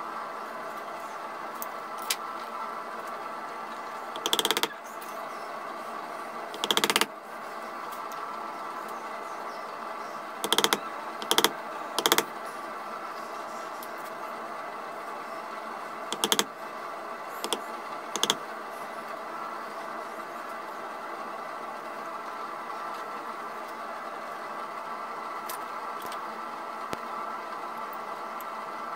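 Wooden carving mallet striking a carving chisel to stab the outline of a relief carving into a wooden gunstock. There are about eight sharp knocks, scattered and some in quick succession, over a steady background hum.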